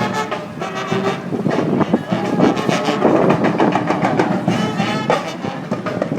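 Street brass band playing live: horns sounding over drum beats.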